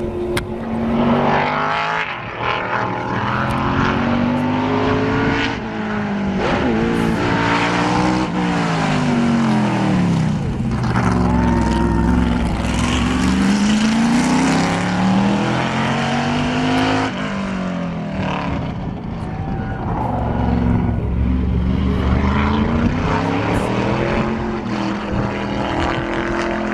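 Open-cockpit race car's engine accelerating hard up a mountain road. Its pitch rises in repeated sweeps and drops at each gear change, with a long fall about a third of the way through before it climbs again.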